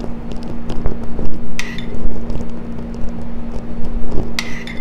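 A metal spoon clinking against a ceramic bowl twice, about a second and a half in and near the end, as sauce is scooped, over a steady low hum.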